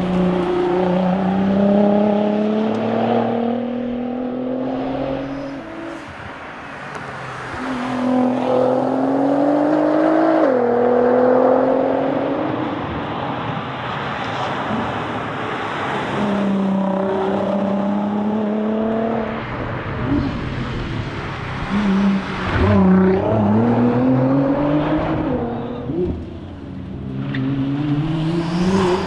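Nissan R35 GT-R's twin-turbo V6 under hard acceleration at rally pace. It pulls up through the gears again and again, its pitch rising and then dropping back at each shift or lift, with brief quieter spells off the throttle.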